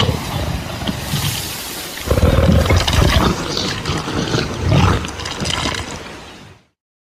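Film sound effect of a Tyrannosaurus rex roaring: one long, rough, deep roar that swells about two seconds in with several loud surges, then fades away near the end.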